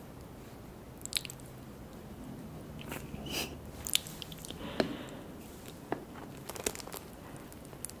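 Close-miked eating mouth sounds: wet clicks and smacks of chewing and lip-smacking, coming at irregular intervals, some sharp and loud.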